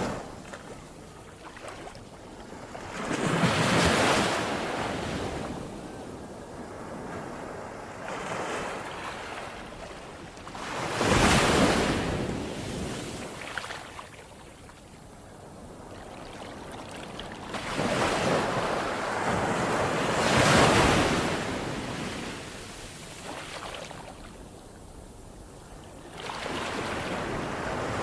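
Ocean surf: waves break and wash in slow surges, one about every seven or eight seconds, with a low hiss between them.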